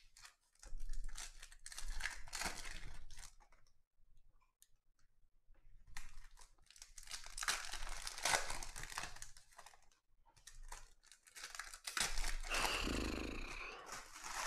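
Foil wrappers of 2020 Donruss Optic football card packs being torn open and crinkled by hand. The crackling comes in three bouts with short pauses between them.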